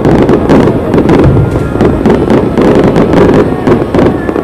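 A fireworks barrage: many shell bursts in quick succession, overlapping with dense crackling.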